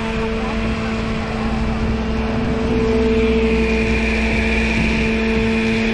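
Electric countertop blender running steadily as it blends pineapple-and-orange juice, a steady motor hum that grows louder and brighter about two and a half seconds in.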